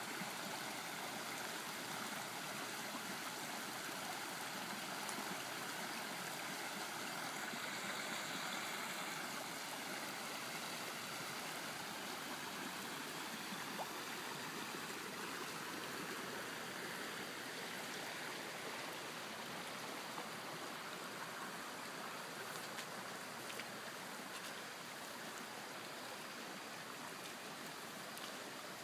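Rushing floodwater from heavy rain running in a steady stream of runoff, easing slightly toward the end.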